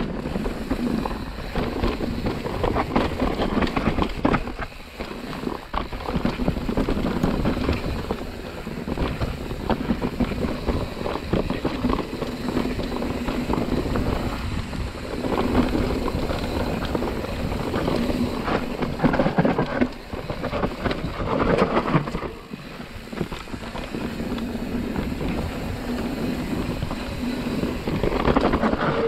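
Mountain bike riding down a dirt trail: tyres rolling over soil and leaf litter, the bike rattling and knocking over bumps, with wind noise on the microphone.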